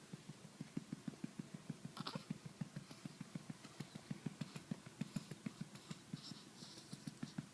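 A hand patting steadily on a back, about five soft pats a second, to bring up a burp.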